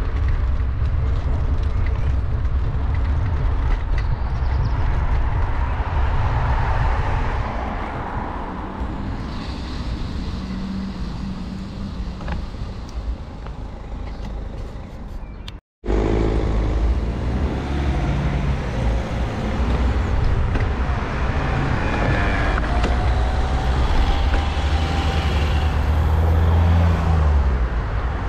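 Road traffic: cars driving past on the street beside the bike path, over a steady low rumble. The sound drops out for a moment about halfway through.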